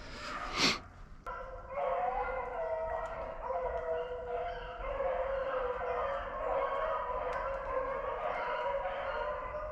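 A pack of beagles baying in chorus on a rabbit chase, many overlapping drawn-out voices starting about two seconds in and carrying on steadily. A short sharp rustling knock comes just before, about half a second in.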